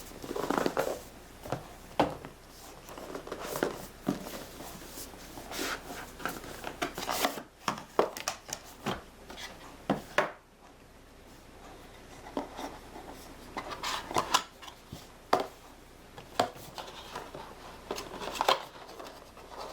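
Cardboard product box being opened and its contents taken out by hand: irregular rustling, scraping and small knocks of the packaging.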